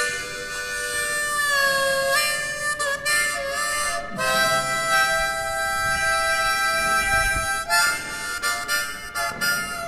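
Harmonica playing held chords, with a slight pitch bend about one and a half seconds in and a long held chord through the middle, then short broken notes near the end.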